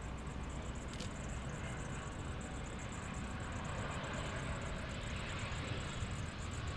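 Distant jet airliner landing, its engine noise a steady rush that swells from about halfway through, over a low wind rumble. A single small click about a second in.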